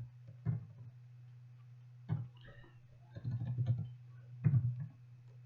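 Computer mouse clicks and a few keyboard taps, scattered singly and then in a short cluster around the middle, over a steady low electrical hum.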